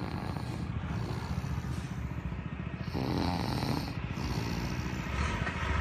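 A drunk man passed out on the road, snoring with regular, repeated snores.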